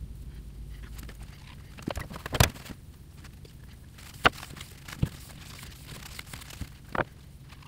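A few separate sharp taps and clicks of hands handling the aluminium bed of a Taig mini lathe; the loudest knock comes about two and a half seconds in, with others spaced over the following seconds.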